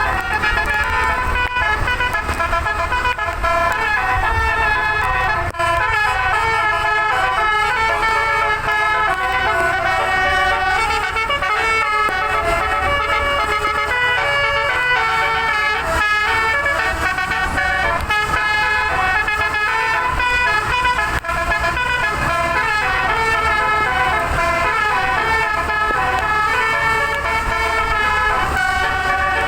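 Tour bus's telolet, a multi-note musical air horn, playing a fast melody of changing notes without a break, over the low rumble of the bus and road.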